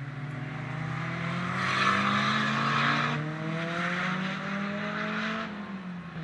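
A car on a race circuit accelerating hard, its engine note climbing, loudest about two to three seconds in. The revs drop briefly around three seconds in, as at a gear change, then climb again before the sound fades near the end.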